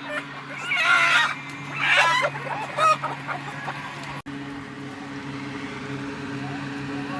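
Chickens calling: three loud squawks in the first three seconds. After a sudden break about four seconds in, only a steady low hum remains.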